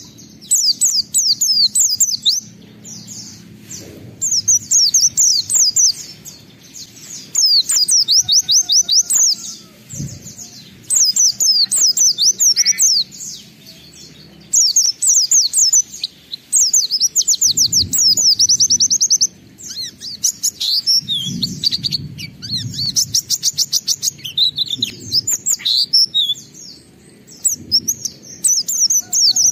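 White-eye (pleci) singing vigorously: repeated bursts of fast, high chirping notes, each lasting about one to two seconds, with short pauses between.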